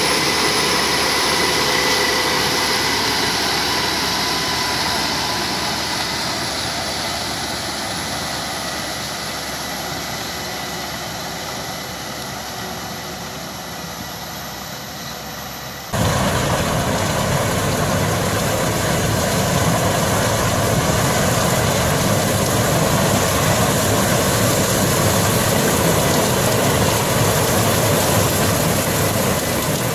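A tractor-drawn pumpkin harvester runs with a steady high whine that slowly fades. About halfway through there is a sudden cut to a Case IH 8230 combine harvester running as it cuts sunflowers, louder and noisier, without the whine.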